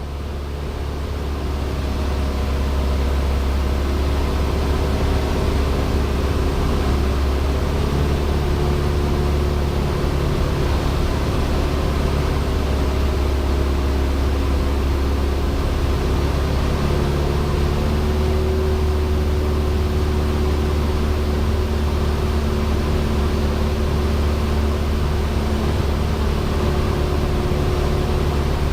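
Cessna 172's piston engine and propeller droning steadily, heard inside the cabin: a deep steady hum under a constant rushing noise, fading in over the first two or three seconds and then holding level.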